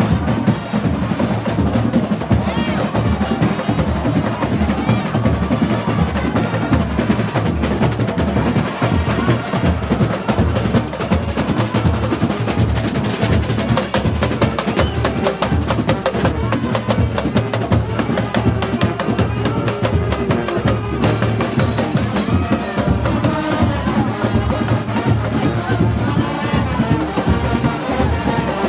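Parade drums, bass drum and snare, playing a steady, dense rhythm at full volume, with crowd voices mixed in.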